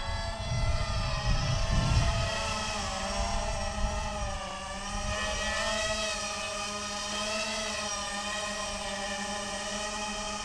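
Small FPV racing quadcopter's brushless motors and propellers whining as it flies, the pitch rising and falling with throttle changes. Wind rumbles on the microphone in the first couple of seconds.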